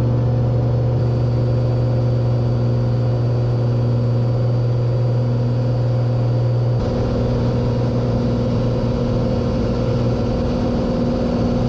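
Cessna 182's piston engine and propeller droning steadily in the climb after takeoff, heard from inside the cabin. About seven seconds in, the tone of the drone changes.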